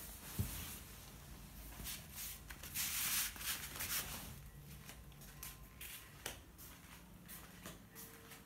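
Rustling, loudest about three seconds in, then a run of light taps as footsteps cross a tiled floor.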